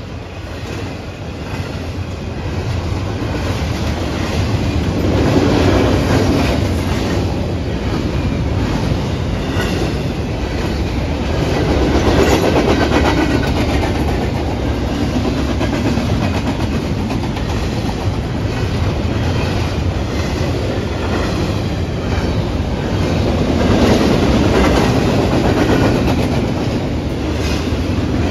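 Norfolk Southern double-stack intermodal freight train's container well cars rolling past close by: a steady wheel-on-rail rumble with clickety-clack from the wheels over the rail joints, swelling louder and easing off every several seconds.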